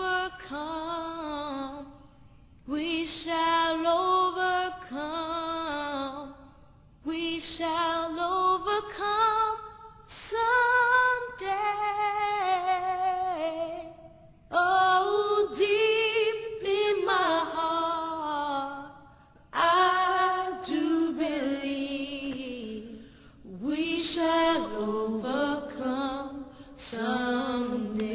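A woman's voice singing unaccompanied, in long held phrases of a few seconds each with short breaks between.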